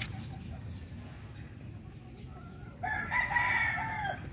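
A rooster crows once near the end, a single short crow lasting about a second and a half.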